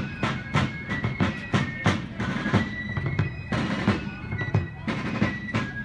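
Fife and drum march music: a shrill fife melody over quick, steady drum strokes.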